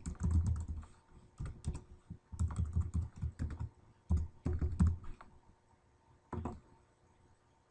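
Typing on a computer keyboard in quick bursts of keystrokes, then one more click about six seconds in.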